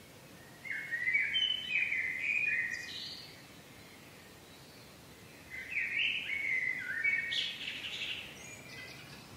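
A songbird singing two phrases of quick, down-slurred whistled notes, each about three seconds long, with a pause of a couple of seconds between them. A steady low background noise of outdoor ambience runs underneath.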